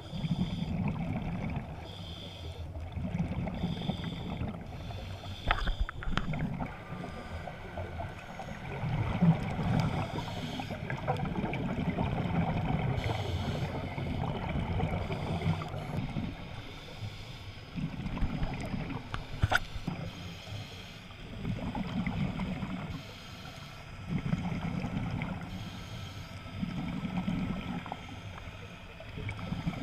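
Scuba regulator exhaust bubbles, coming in bursts every couple of seconds with the diver's breathing, heard underwater through the camera's waterproof housing.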